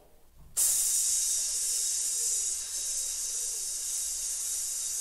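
A man breathes out in one long, steady 'tss' hiss through his teeth, like water landing in a hot metal pan, starting suddenly about half a second in after a quiet in-breath. It is a controlled out-breath from a breath-control warm-up for brass players.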